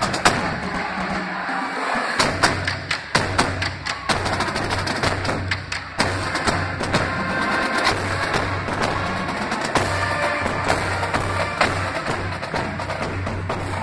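School drumline playing a percussion cadence: fast, sharp stick and rim clicks over a repeating low bass drum pulse.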